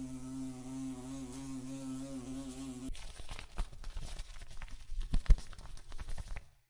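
Bumblebee buzzing in flight at a flower: a steady low hum that wavers slightly, cutting off abruptly about three seconds in. A scattering of faint irregular clicks and ticks follows.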